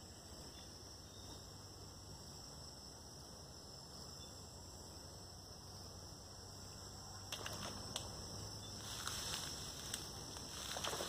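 Faint outdoor pond-side ambience with a steady high insect drone. From about seven seconds in come a few light clicks and a growing rustle toward the end.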